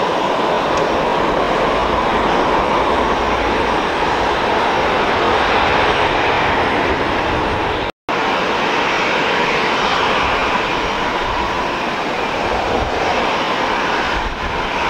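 Airliner turbofan engines running steadily, first a Boeing 767 rolling out after landing, then an Airbus A350's Rolls-Royce Trent XWB engines as it taxis. The sound cuts out for a split second about eight seconds in.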